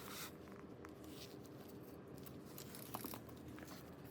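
Faint scattered clicks and rustling of small plastic parts being handled, as a plastic cover is pushed over an axle nut on a child's bicycle.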